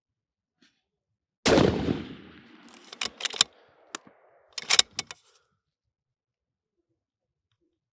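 A single suppressed 6.5 Creedmoor bolt-action rifle shot with a report that trails off for about a second. It is followed by a few sharp metallic clicks over the next three seconds as the bolt is worked.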